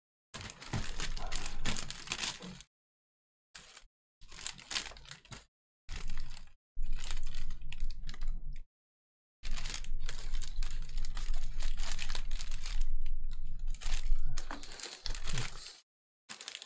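Typing on a computer keyboard: quick runs of key clicks in several spells, broken by short pauses.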